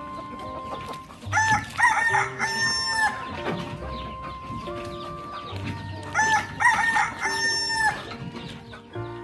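A rooster crowing twice, each crow ending in a held note, over background music.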